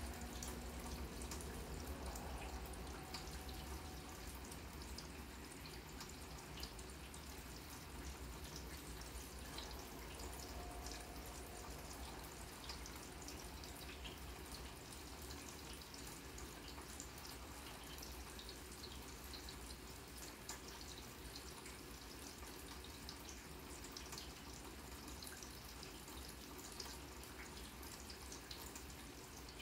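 Light rain falling on a grass lawn: a faint, steady hiss with many scattered drops ticking throughout.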